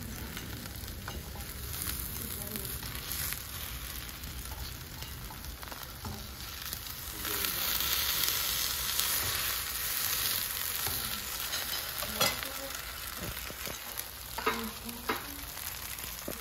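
Bánh xèo batter with shrimp and bean sprouts sizzling in oil in a nonstick frying pan, a steady hiss that grows louder about seven seconds in as a spatula is worked under the crisping edge. There is a sharp tap about twelve seconds in.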